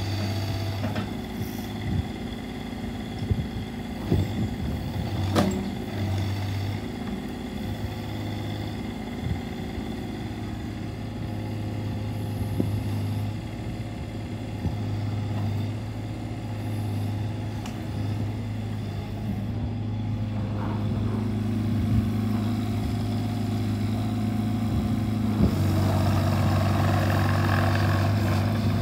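Caterpillar 301.8C mini excavator's diesel engine running, its note rising and falling with the hydraulic load as the boom and bucket work, with a few sharp knocks. Near the end the engine runs louder as the machine drives.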